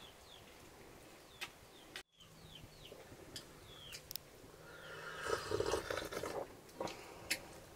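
Small birds chirping faintly in short falling notes, with a few sharp clicks. About five seconds in comes a louder rough, noisy stretch of sipping and slurping from metal cups.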